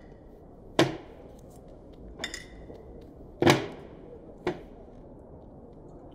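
Glass beer bottles knocking and clinking against the table and each other as they are handled and opened: four sharp knocks about a second apart, the third the loudest.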